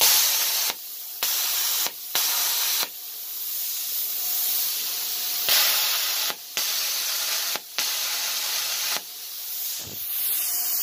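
Plasma cutter torch (Velt Cut 60) cutting steel: a loud, steady hiss that drops out sharply for a moment several times and comes straight back.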